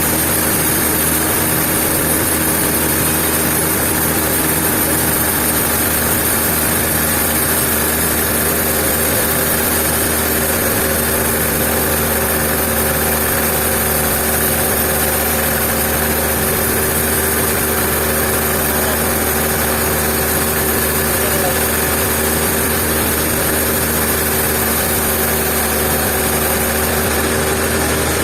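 Sawmill machinery running with a steady, unchanging engine-like hum and a constant high hiss.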